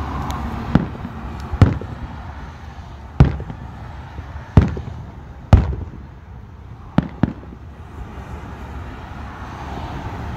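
Aerial firework shells bursting in the sky, about eight sharp bangs at irregular intervals of roughly one to one and a half seconds, several trailing off in a short echo.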